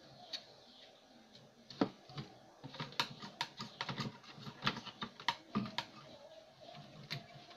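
Irregular clicks and light knocks of hands and tools working on the opened CRT TV's plastic cabinet and chassis, busiest in the middle of the stretch.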